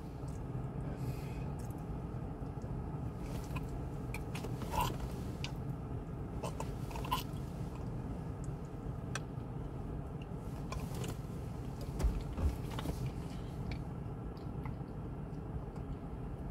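Soft mouth clicks and wet smacking from a man working his mouth to bring up saliva for a spit test, over a steady low hum in a car cabin. A few slightly louder mouth noises come about 5, 7 and 12 seconds in.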